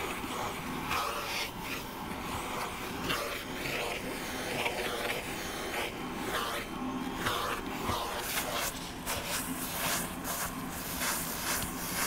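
Vacuum cleaner running steadily while its nozzle is drawn again and again through a cat's fur, with a rubbing, scraping sound at each stroke.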